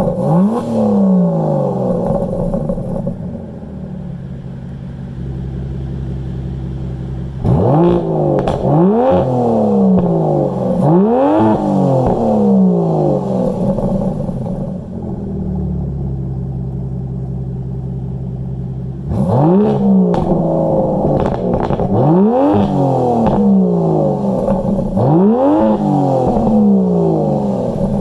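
Aston Martin DBS Superleggera's twin-turbo 5.2-litre V12 with quad exhausts, being blipped from idle: a rev falling away at the start, a steady idle, then a run of quick revs, each shooting up and dropping back, idle again, and a second run of revs through most of the second half.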